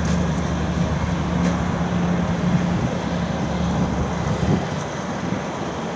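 Distant jet engines of an Airbus A340-300, its four CFM56 turbofans at low taxi power, making a steady rumble with a low hum. The sound eases off slightly about four and a half seconds in.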